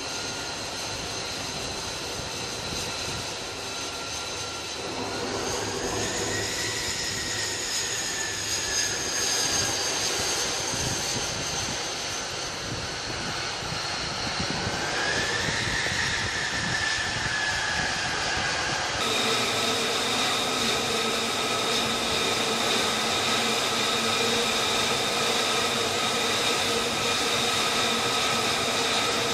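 F-35C's single turbofan jet engine whining at low power, its pitch swelling up and easing back down twice. About two-thirds of the way through the sound changes abruptly to a steadier, fuller whine.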